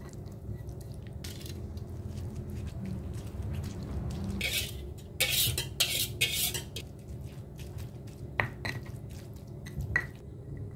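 Stone pestle grinding and mashing sambal in a stone mortar (Indonesian cobek and ulekan): a steady low scraping rumble with small knocks. About halfway through come a few loud rasps as the pestle scrapes leaves off a metal bowl into the mortar. Two sharp knocks of the pestle on the mortar follow near the end.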